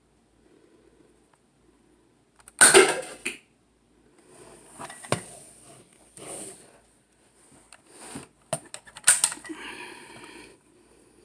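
Plastic clicks, knocks and rattles from handling a Nerf blaster and its dart clip, with a loud rattling burst about two and a half seconds in and another about nine seconds in.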